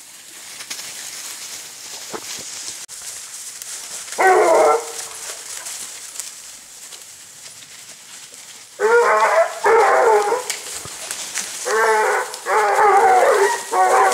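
Pack of basset bleu hounds giving tongue as they hunt: a single baying cry about four seconds in, then from about nine seconds a run of repeated bays that come thick and fast toward the end.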